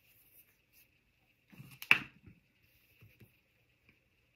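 A short clatter of a small hard object knocking on a craft tabletop about two seconds in, the sound of craft tools being picked up or set down, then a couple of faint taps.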